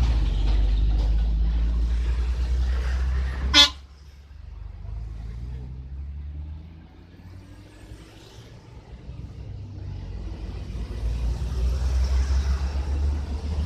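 Road traffic: a motor vehicle's engine rumbling past, with a short horn toot about three and a half seconds in. It quiets briefly, then another vehicle's rumble builds toward the end.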